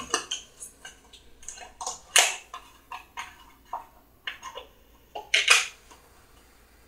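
Kitchen handling sounds: short irregular clicks and taps of a metal spoon and a cardboard milk carton being picked up and its plastic screw cap opened, with two louder brief rasps about two seconds and five and a half seconds in.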